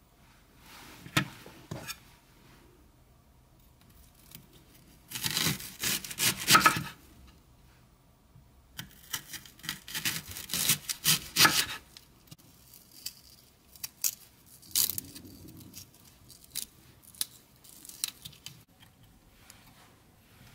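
Kitchen knife slicing through a raw onion on a wooden cutting board, the blade crunching through the layers in several loud bursts. Later come lighter taps and rubbing as the onion rings are handled on the board.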